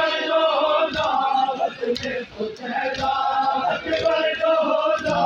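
Men's voices chanting a noha, a Muharram lament, in long drawn-out sung lines, with a dull beat about once a second.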